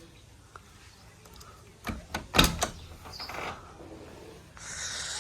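A few sharp knocks and clatters, loudest about two and a half seconds in, then a short hiss near the end.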